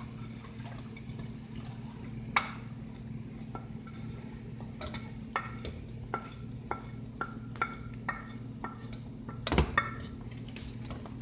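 A metal spoon clinking and scraping against a cooking pot while okra is spooned in: a dozen or so light strikes, each with a short ring, and a cluster of louder knocks near the end, over a steady low hum.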